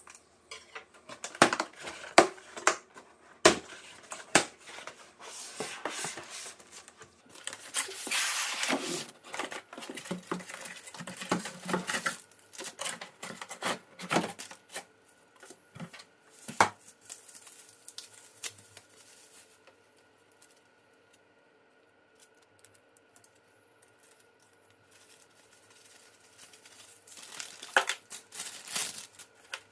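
Unboxing a laptop by hand: cardboard box and moulded pulp packing trays knocking and scraping, with plastic bags crinkling and paper rustling. The handling is busy with many sharp knocks in the first half, goes quiet for several seconds in the later middle with only a faint steady hum, and plastic crinkles again near the end.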